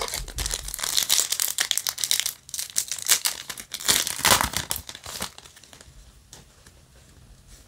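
Foil wrapper of a trading-card booster pack crinkling and tearing as it is opened, crackling for about five seconds, then going quiet as the cards are slid out.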